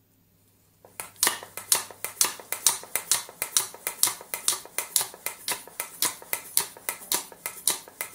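Hand pump of an air-pressure drain plunger being worked stroke after stroke to build up air pressure in its chamber: a quick, regular run of sharp clicks, about three to four a second, starting about a second in.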